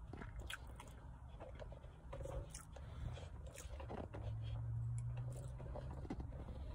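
Close-up chewing of a mouthful of pepperoni pizza with the mouth closed, with small crunches and clicks as it is chewed. Partway through there is a low hum lasting about two seconds.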